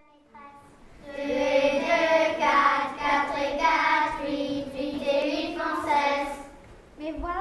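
Children's choir singing together, led by a conductor. The voices come in about a second in, hold sustained notes, and fade out shortly before the end.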